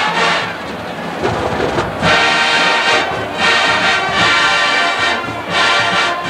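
Marching band brass playing big band music. A softer passage gives way about two seconds in to loud, held chords punched out in phrases about a second long.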